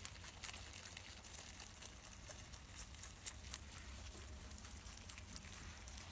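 Young rabbits munching fresh herbs: faint, quick, irregular crunching clicks of chewing and leaves tearing, over a steady low hum.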